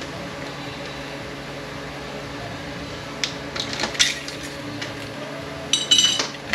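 Metal transmission parts being handled during a teardown: a few light clicks and knocks about halfway through, then a brief ringing metallic clink near the end, over a steady low hum.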